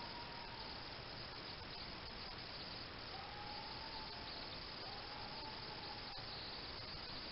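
Steady night chorus of crickets, a continuous high chirring over an even hiss. Three faint, drawn-out tones of unclear source rise and fall slightly near the start, around the middle, and again a second later.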